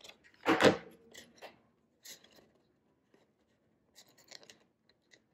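Hands handling and pressing together pieces of a cardstock paper model: light rustling and scraping of card, with one louder rustle about half a second in and a few small ticks after.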